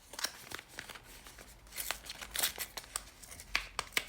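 Product packaging being handled and unwrapped by hand: irregular crinkling and rustling with small sharp clicks, busier in the second half.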